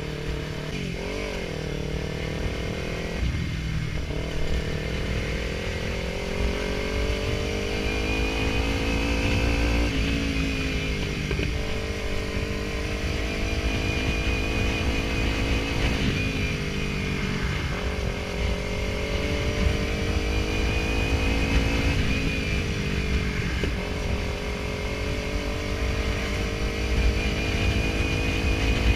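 Kawasaki Ninja 300's parallel-twin engine running under way, its pitch climbing steadily and then dropping sharply four times, about every six seconds, as at gear changes.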